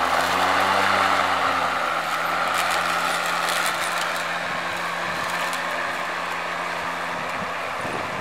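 Ryobi 20-inch cordless self-propelled lawnmower running: a steady motor hum under the rush of the spinning blade, starting suddenly and easing slightly after the first couple of seconds.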